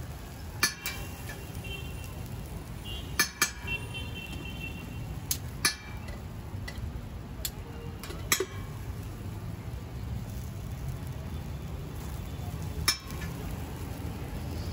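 Metal spatula scraping and tapping on a flat dosa griddle (tawa) while spreading the topping, giving about seven sharp metallic clinks, some with a brief ring, over a steady low rumble.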